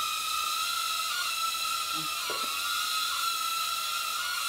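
Snaptain SP330 mini drone's propellers whining steadily at a high, even pitch, the whine dipping briefly about four times as the drone is steered.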